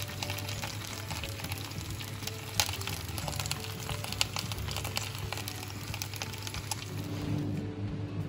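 Background music over a crackling sizzle from the hot roast leg of lamb and its juices in the roasting pan; the sizzle stops about seven and a half seconds in.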